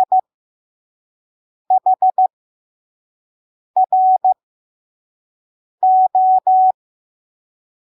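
Morse code sent as on-off beeps of a single steady tone, keyed slowly at 5 words per minute with long pauses between letters. Just the tail of one letter falls at the start, then three letters follow: four dits (H), dit-dah-dit (R) and dah-dah-dah (O), spelling part of "Chronicles".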